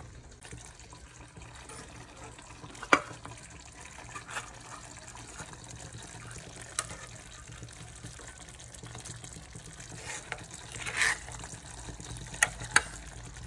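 Utensil clatter over a steady low hiss of a simmering stew as liver spread is spooned into the pot: a loud sharp tap about three seconds in, a few lighter taps, a short scrape shortly before the end, and two quick taps near the end.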